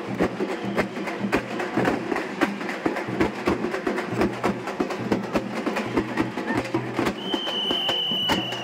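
Fast, loud drumming with dense, rapid strikes keeping a driving dance rhythm. Near the end a single high, steady tone is held for about a second and a half over the drums.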